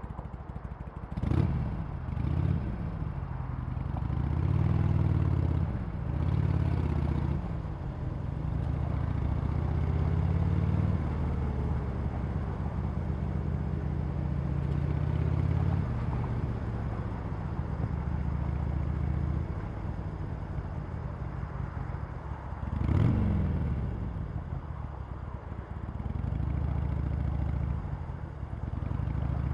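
Harley-Davidson Sportster Iron 883's air-cooled V-twin running through its stock exhaust, the revs rising and falling with the throttle. There are two quick, sharp throttle blips, one about a second in and one about three-quarters of the way through, and a long steady stretch in the middle.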